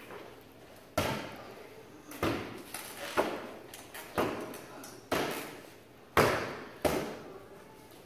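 Inflatable beach ball batted back and forth by hand, a sharp slap at each hit, about seven hits roughly a second apart, each ringing briefly in a large hall.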